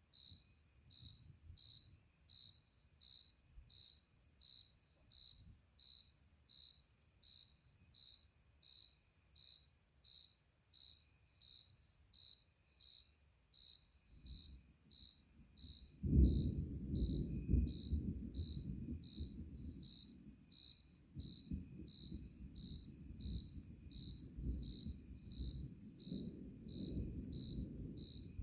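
A cricket chirping steadily, a little under two high chirps a second. About halfway through, distant thunder starts rumbling, a low rumble that comes in suddenly and keeps rolling.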